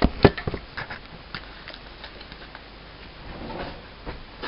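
A few sharp knocks and clicks of kitchen things being handled, then a soft rustle and one more knock near the end.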